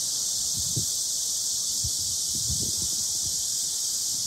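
Steady high-pitched chorus of cicadas, a continuous even drone that does not change.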